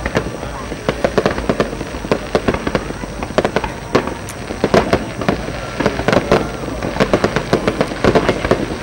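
Fireworks display: a dense, unbroken barrage of bangs and crackling from shells launching and bursting, several reports a second.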